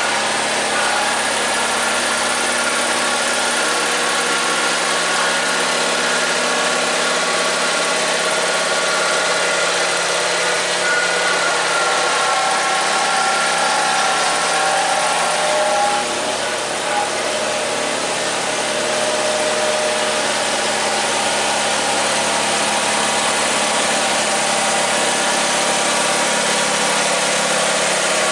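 Simplicity garden tractor's engine running steadily on a test run after its bevel gearbox repair, with a brief dip in level about sixteen seconds in.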